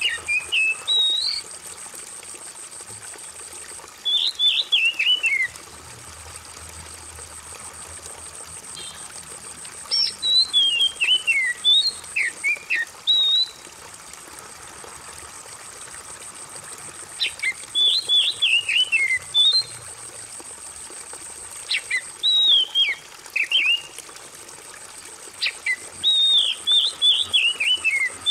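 Oriental magpie-robin singing bursts of quick whistled notes that slide downward, five phrases a few seconds apart, over a steady trickle of running water.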